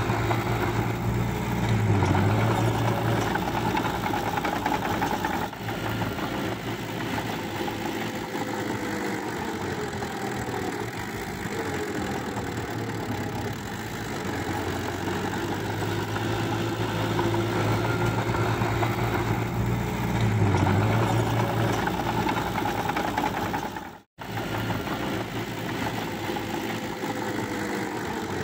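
Small crawler dozer's diesel engine running steadily, its pitch dipping briefly twice as it works in wet soil. The sound cuts out for an instant near the end.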